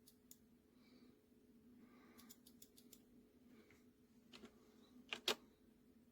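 Scattered light clicks of buttons being pressed, a quick run of them about two seconds in and the loudest pair about five seconds in, over a faint steady electrical hum.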